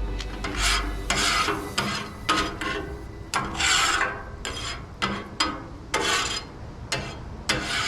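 A metal scraper scraping cooked-on food residue off the steel top of a Blackstone griddle, in repeated rasping strokes about two a second.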